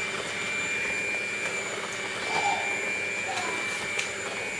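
Electric hand mixer running steadily with a high whine, its beaters churning cream cheese in a metal pan.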